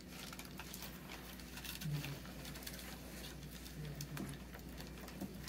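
Faint crinkling and rustling of aluminium foil as it is folded and pinched by hand into a small cradle, in scattered small crackles.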